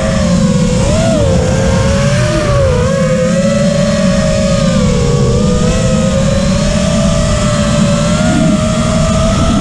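Lumenier brushless motors and propellers of an FPV quadcopter whining, heard from the onboard camera, the pitch rising and falling with the throttle. Under it is a heavy low rush of wind and prop wash on the microphone.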